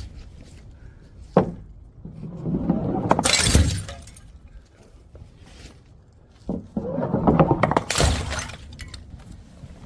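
Glass bottles breaking, twice: each time a sharp knock, then a second or so of loud shattering glass.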